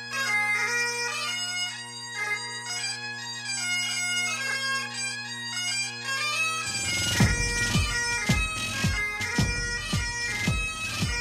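Highland bagpipe music played back for dancing: steady drones under the chanter melody. About seven seconds in the drones drop out and a deep drum beat comes in, about two beats a second, under the tune.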